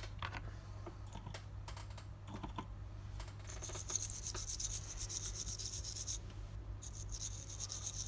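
Rapid, fine scratching on a hard surface in two spells of a few seconds, starting about three and a half seconds in and again about seven seconds in, over a steady low electrical hum; a few small clicks come before it.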